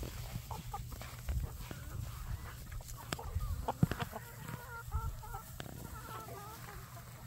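Chickens clucking, a run of short warbling calls in the second half, with a sharp knock just before four seconds in.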